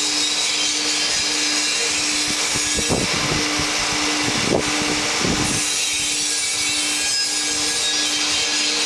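Steady mechanical whir and hiss with a constant hum during a test run of a 24-inch pipeline stophead mechanism, its steel linkage slowly moving. A few short knocks or scrapes come around the middle.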